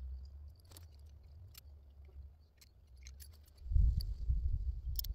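Small scattered clicks and rustles of polytape fence wire and a metal jump connector being handled. A low rumble swells and grows loud about three and a half seconds in.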